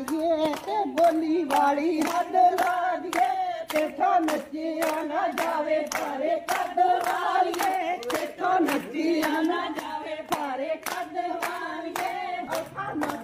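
A group of women singing a Punjabi folk song together over steady rhythmic hand-clapping, about three claps a second, as in a gidda dance.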